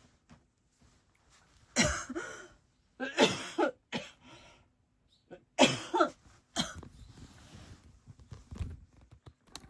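A run of about five short, harsh coughs, a second or so apart.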